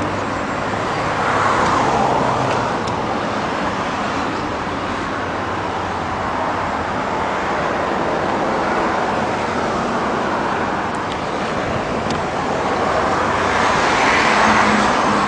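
Road traffic noise: a steady wash of passing cars, with one vehicle swelling past about a second in and another near the end.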